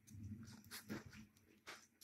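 Faint handling of plastic DVD cases being rearranged: a low rustle, then a few light clicks.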